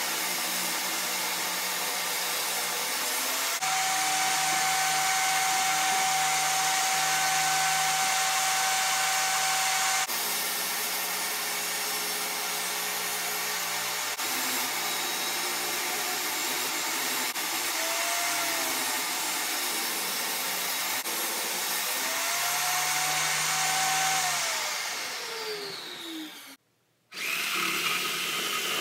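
Table saw running and ripping a thick reclaimed Douglas fir beam, a steady hiss with a whine that comes and goes. Near the end the saw is switched off and winds down with a falling whine; after a brief break a different, higher-pitched power tool starts.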